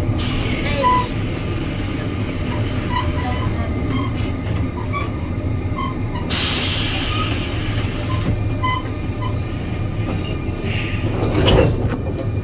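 Mugunghwa passenger train running slowly into a station, heard from just behind its locomotive: a steady low rumble of the running gear and locomotive. A sudden hissing burst comes about six seconds in, and a louder knock near the end.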